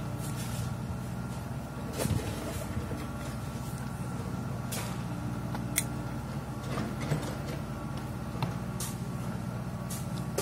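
A motor running steadily at an even pitch, with a few faint clicks and taps over it.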